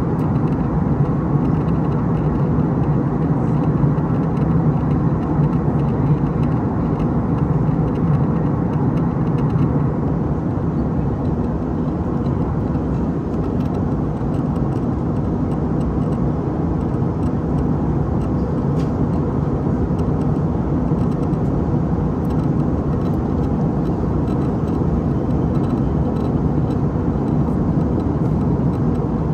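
Steady cabin noise of an Airbus A319 airliner in flight on approach: a constant low engine hum under the rush of airflow past the fuselage.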